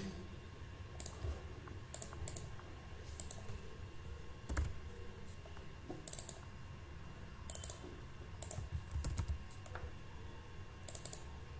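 Computer mouse clicking at irregular intervals, several of the clicks coming as quick double-clicks, faint.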